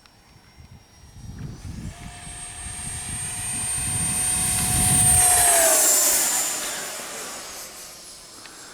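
70mm electric ducted fan of a Freewing Hawk T1 RC jet making a pass: the fan whine builds for a few seconds, is loudest about five seconds in, then drops in pitch as it goes by and fades away.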